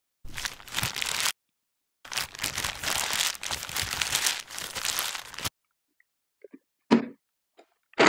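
Fresh basil leaves being plucked from their stems and dropped into a blender jar: crinkly rustling and tearing in two stretches. A single knock near the end as the lid goes onto the jar.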